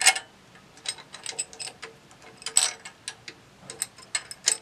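A wing nut and washer being threaded by hand onto a steel bolt, giving irregular sharp metallic clicks and ticks. The loudest clicks come right at the start and again about two and a half seconds in.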